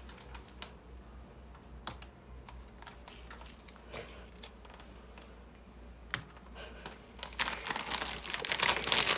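A few light clicks and taps as vegetable chips are set onto hamburger buns, then a plastic snack bag crinkling, much louder, from about seven seconds in.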